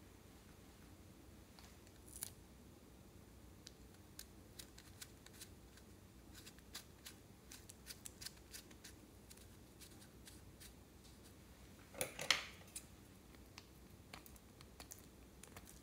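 Faint light clicks and taps of plastic crayon sticks being handled. About three quarters of the way through, a short burst of sharp scissor snips cuts into the crayons, the loudest sound here.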